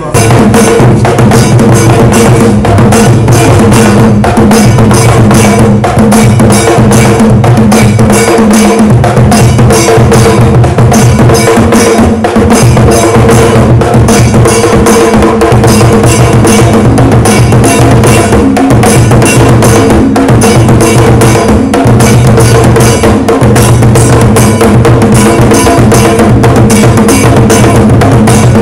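Loud music with a drum and percussion beat over held bass notes, starting abruptly.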